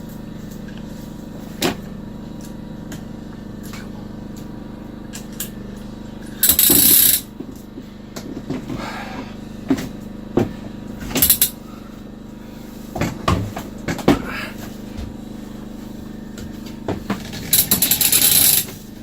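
Sailboat winch ratcheting in short bursts, about six seconds in and again near the end, as the running backstay is cranked in to hoist a heavy life raft, with scattered knocks and clanks between, over a steady low hum.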